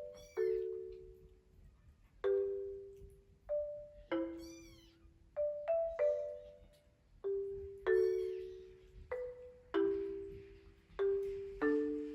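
Gentle background music of single marimba-like notes struck slowly, each fading out. A baby kitten meows about three times over it: near the start, about four seconds in, and about eight seconds in.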